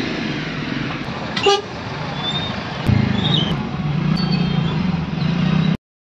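Road traffic heard from inside a car in slow town traffic, with one short car-horn toot about a second and a half in and fainter toots after it. A low engine hum grows louder from about three seconds in, and all sound cuts off suddenly just before the end.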